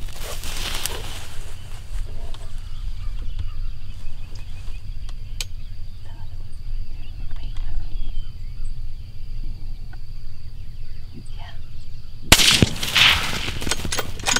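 Steady wind rumble, with a sharp, loud crack about twelve seconds in, a rifle shot, trailing off over a second or two. A shorter rush of noise comes right at the start.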